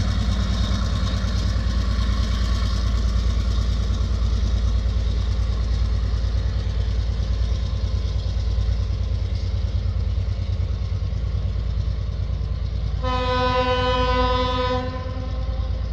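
TasRail TR-class diesel locomotives running light engine, a steady low diesel rumble as they pull away up the hill. About thirteen seconds in, a locomotive horn sounds once for about two seconds, a chord of several tones.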